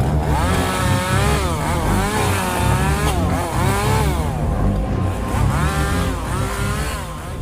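Chainsaw revving up and down over and over, its pitch rising and falling, over background music with a low pulsing beat.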